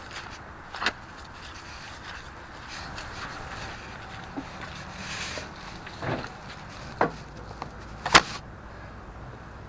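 Camera handling: several sharp knocks and bumps, the loudest about eight seconds in, as a handheld camera is moved about and set down against a wooden deer stand, over a steady rustle.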